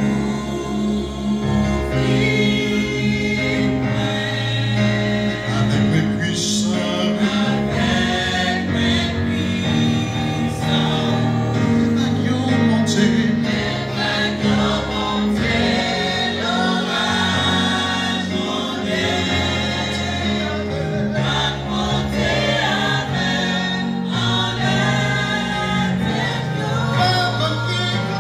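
A gospel praise team of mixed men's and women's voices singing a Haitian Creole worship song in harmony through microphones, over held low accompaniment notes.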